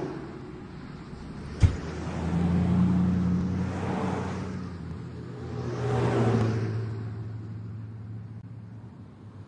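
Motor vehicle running, with a steady low engine hum and noise that swells and fades several times, like cars passing. One sharp knock about a second and a half in.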